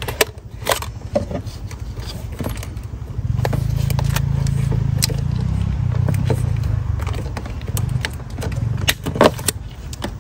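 A cable tie being handled and fitted around a battery-tray J-bolt: scattered small plastic clicks and scrapes. A low rumble comes in about three seconds in and fades a few seconds later, the loudest sound here.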